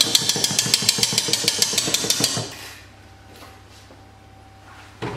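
A wire balloon whisk clinking rhythmically against a stainless-steel mixing bowl of stiff whipped egg whites, about seven strikes a second, stopping about two and a half seconds in, after which only faint room tone remains.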